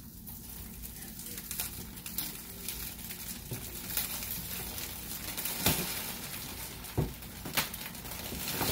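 Clear plastic wrapping on a rolled-up mattress rustling and crinkling as it is pulled and worked loose by hand, with a few sharp crackles past the middle and the rustling growing louder near the end.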